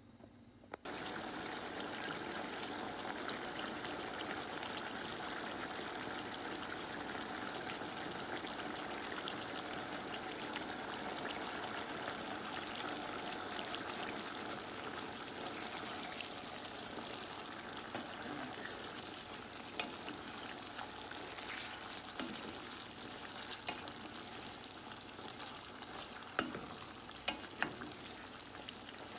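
Pork, kabocha squash and long beans sizzling and bubbling in a nonstick frying pan, stirred now and then with a wooden spatula that gives small taps and scrapes. The sizzle starts suddenly about a second in and holds steady, with the taps coming more often near the end.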